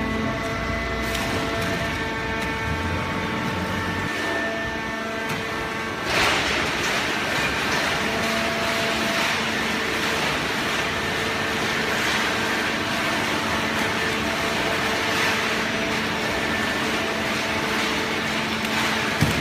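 Automatic horizontal hydraulic baler for shredded waste paper running, with a steady whine from its hydraulic power unit. About six seconds in, a louder, noisier mechanical rush joins it and carries on. A single short knock comes near the end.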